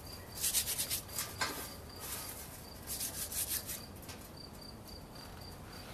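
Dry cabbage seed pods rubbed between the palms to thresh out the seeds: a dry rustling crackle in uneven bursts, strongest in the first second and again around three and a half seconds in.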